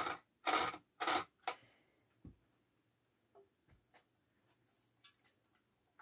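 Screws being undone from the top of a vacuum cleaner motor's housing: four short scraping clicks in the first second and a half, then a few faint clicks and taps.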